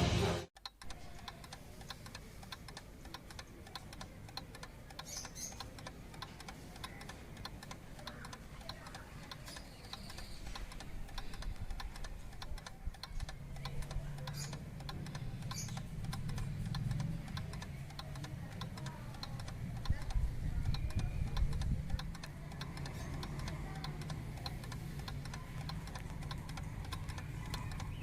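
Mechanical wind-up twin-bell alarm clock ticking, a fast run of small clicks, with a faint low murmur underneath from about halfway through.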